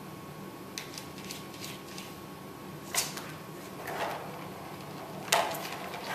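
A cat batting at a plastic ball-track toy: a few light clicks about a second in, then louder knocks and rattles of the plastic ring and ball near three and five seconds.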